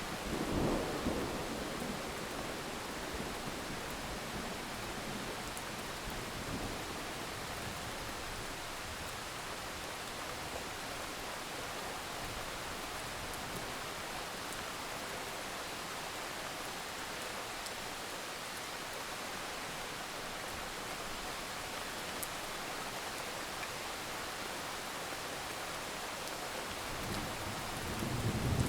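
Steady rain, an even hiss of falling drops. A low rumble of thunder fades about a second in, and another builds near the end.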